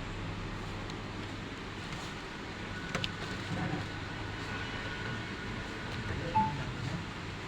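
Steady low background hum, with a faint click about three seconds in and a brief high beep-like tone near the end.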